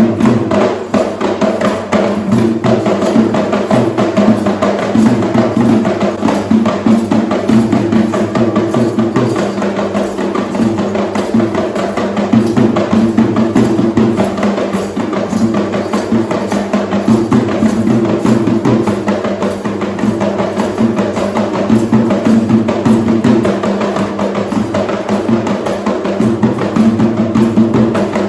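Sri Lankan traditional drum ensemble playing a fast, dense rhythm of hand-struck drums, with a steady pitched tone running underneath, without a break.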